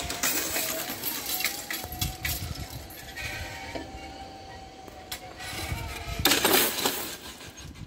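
Electric barrier drive of a railway level crossing raising the booms, a steady whine that wavers slightly in pitch for about five seconds. A loud rushing noise follows near the end.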